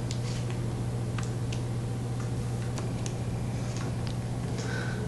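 Scattered light ticks and clicks, about a dozen at uneven spacing, from an African grey parrot moving about on a hardwood floor, over a steady low hum. A brief high note comes near the end.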